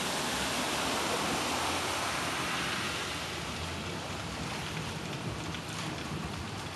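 Steady rushing and splashing of water as a minivan's tyres plough through deep street floodwater and throw up spray, easing after about three seconds into the wash of moving floodwater.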